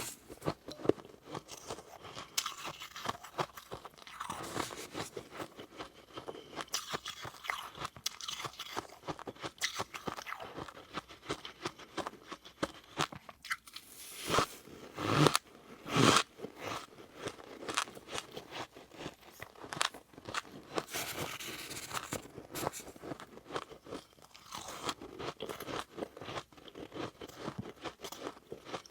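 Close-up crunching and chewing of soft, powdery freezer frost, many quick irregular crunches with a few louder bites about halfway through.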